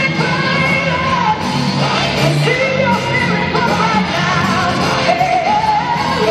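Gospel choir singing with a full band, loud and continuous.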